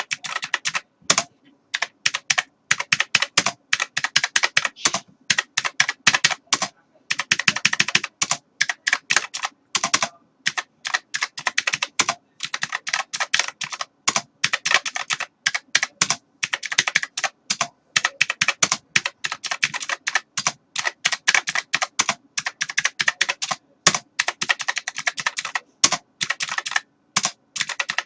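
Computer keyboard being typed on continuously: rapid, irregular key clicks in runs, with short pauses every few seconds.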